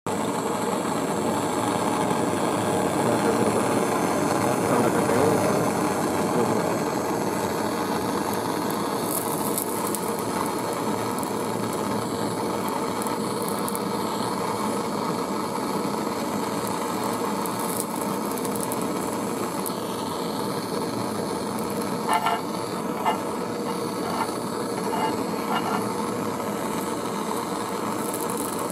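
Handheld butane canister gas torch burning with a steady hiss while its flame heats a small metal spinner drum. A few light clicks come about three-quarters of the way through.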